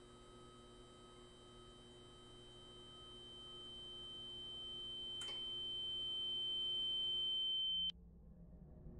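A steady high-pitched sine tone, a horror-film sound effect, swelling slowly louder over several seconds and cutting off suddenly near the end, over a faint low hum.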